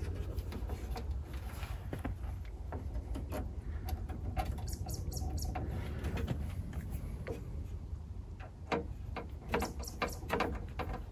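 Light clicks and knocks of screws and metal hardware being handled while a cook table is fastened to a Jeep's tailgate, busier and louder from about two-thirds of the way in. Short high chirps come through now and then over a steady low rumble.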